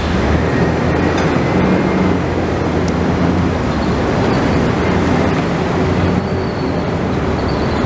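Heavy port machinery running during a crane lift: a steady, loud mechanical drone with a low hum.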